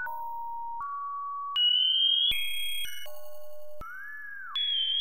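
Synthesized electronic tones from a bouncing-ball synthesizer, each bounce off a wall of the canvas switching to a new steady beep with a click. The pitches step higher as the wall frequency sliders are raised, with a brief jumble of several tones just after the middle and, near the end, a tone that bends up and back down as a slider is dragged.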